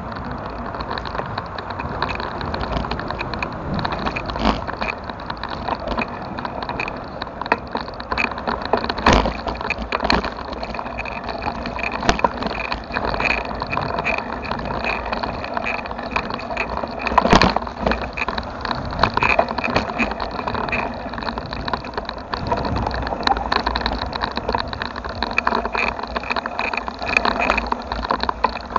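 Bicycle ridden over a dirt trail: continuous tyre and rattling noise with frequent small clicks and knocks, and two sharper jolts about 9 and 17 seconds in.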